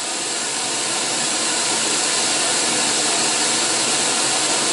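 Steady pink-noise hiss played through a Diamond Audio 6.5-inch coaxial motorcycle speaker in a fairing pod, a test signal for measuring the speaker's frequency response on a real-time analyser.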